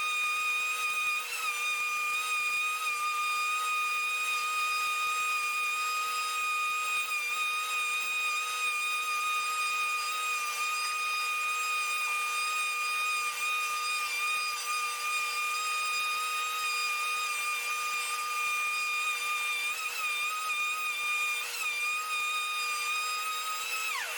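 Wood router cutting the thread of a wooden vise screw in a threading jig: a steady high motor whine with a few brief wavers, which falls away in pitch at the very end as the router is switched off. A steady lower hum from the shop vacuum runs underneath.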